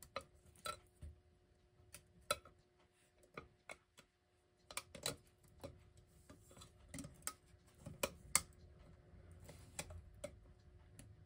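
Irregular small clicks and taps of a metal retaining ring being worked into a clock's dial ring past its spring clips, over a faint steady hum.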